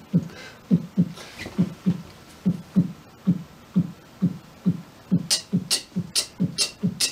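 Vocal imitation of a heartbeat heard through a stethoscope: low, compressed thumps from deep in the throat, about two a second. About five seconds in they quicken to about four a second, with a sharp hissing click on each beat.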